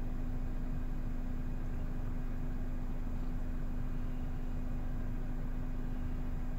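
Steady low hum inside a parked car with its engine idling, with one constant droning tone.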